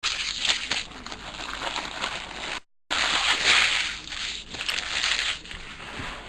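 Foil wrapper of a trading-card pack being torn open and crinkled, a dense crackling rustle with a brief cut out a little over two and a half seconds in.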